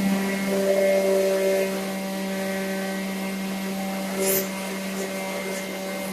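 Vacuum cleaner motor running steadily with a constant hum, with a brief higher hiss about four seconds in.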